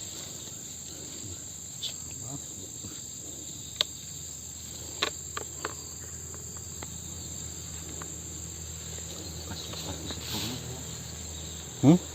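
Steady high-pitched insect chorus. A few sharp clicks come through it, and a loud, brief rising sound comes near the end.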